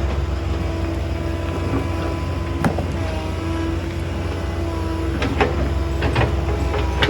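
Hydraulic excavator's diesel engine running steadily under a steady hydraulic whine, with stones knocking and clattering against the bucket: a sharp knock a little under three seconds in and a cluster of knocks after about five seconds.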